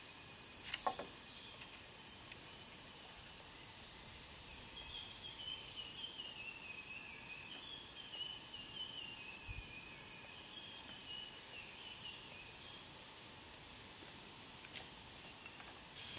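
A steady, high-pitched insect drone from the surrounding forest. A bird calls in a run of short chirps for several seconds in the middle, and a sharp knock comes about a second in, with a lighter one near the end.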